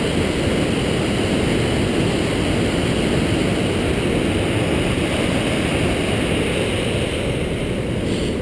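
Whitewater rushing down a granite chute: a loud, steady roar of water, dipping slightly near the end.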